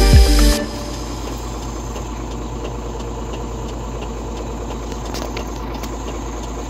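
Background music cuts off about half a second in. It leaves a steady low drone of truck engine and road noise.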